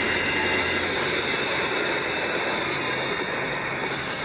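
A train braking: a steady, loud roar of brakes and steel wheels grinding on the rails, with a faint squeal above it.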